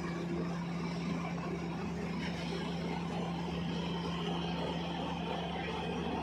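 Large ro-ro passenger ferry's diesel engines running steadily while berthed: a constant low hum with an even rumble underneath.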